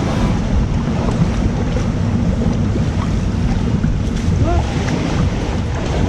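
Steady wind rumble on the microphone over open sea water, with the wash of small waves.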